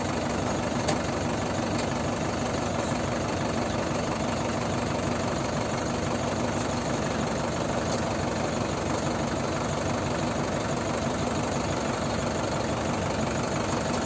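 Mahindra tractor's diesel engine idling steadily.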